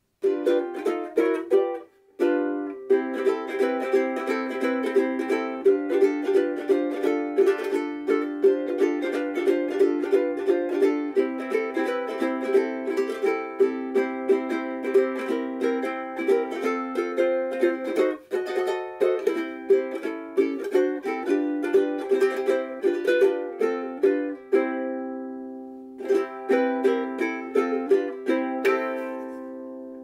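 A Famous FS-1G soprano ukulele with a laminated mahogany body and fluorocarbon strings, strummed in quick rhythmic chords. There is a brief break about two seconds in and a chord left ringing near twenty-five seconds. A last chord is left to ring out and fade at the end.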